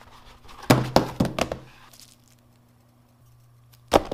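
Small box set down on a wooden desk with a quick run of knocks and rattles. Nearly four seconds in comes one sharp knock as a notebook is dropped into a wooden drawer full of notebooks. A faint steady hum runs underneath.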